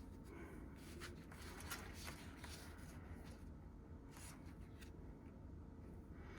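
Faint rustling and soft, scattered taps of photocards and paper album inserts being handled and sorted into piles.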